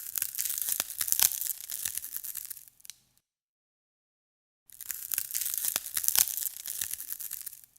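Ice breaking: two bursts of dense cracking and crunching, each about three seconds long, the second starting a little under five seconds in.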